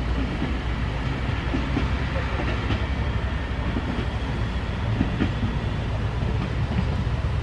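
Single-car diesel railcar of the Nagaragawa Railway pulling away, its engine a steady low rumble with a few faint clicks of wheels on the rail.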